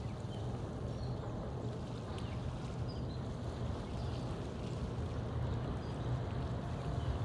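Steady low outdoor rumble with a soft wash of water or wind noise, growing slightly louder near the end, and a few faint high chirps.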